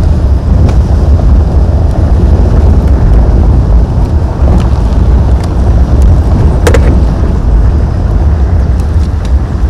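Steady low rumble of vehicles driving along a dirt road, with wind buffeting the microphone. A single sharp click comes about two-thirds of the way through.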